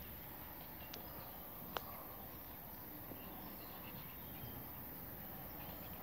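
Quiet woodland ambience: a steady hiss with faint distant bird chirps, and a sharp click a little under two seconds in.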